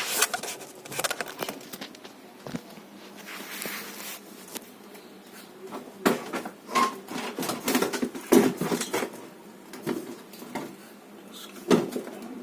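Irregular clicks, taps and knocks of hand work on an electrical cable, as the cable is cut with a hand tool and handled. The knocks bunch together in the middle of the stretch, with one sharp knock near the end.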